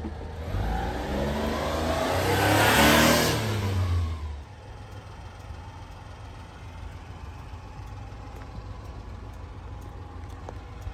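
A motor vehicle's engine swells to a loud peak about three seconds in and dies away by about four and a half seconds. A steady low engine rumble is left behind.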